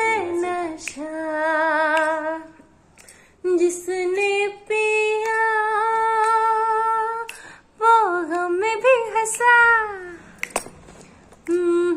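A woman singing unaccompanied in a small room, drawing out long held notes, some with vibrato. The longest note is held steady in the middle, and a few short falling phrases come near the end.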